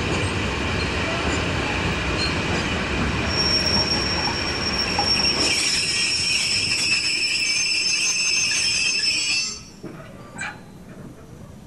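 Freight train of covered hopper wagons rumbling slowly past, with a high steady squeal from the wheels and brakes as it slows. The rumble and squeal cut off about nine and a half seconds in as the train comes to a stand.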